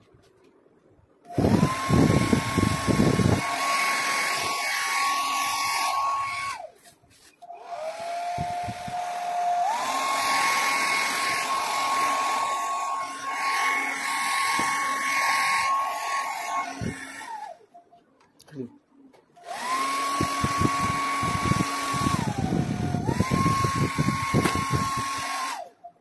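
Syska HD1610 1200 W hair dryer switched on and off three times, each run a steady rush of air over a high motor whine. The whine twice shifts to a lower pitch and back up, in the second and third runs.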